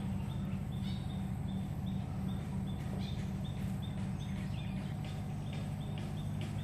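Short high chirps from a small animal, repeated about three times a second, over a steady low hum.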